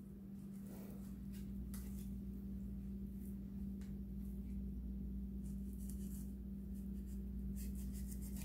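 Kitchen knife cutting through beef short ribs: faint slicing and scraping with a few light knocks of the blade on the cutting board, over a steady low hum.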